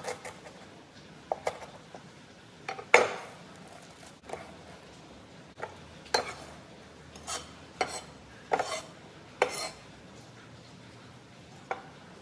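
Chef's knife on a wooden cutting board: a dozen or so separate knocks and chops at irregular spacing, the loudest about three seconds in.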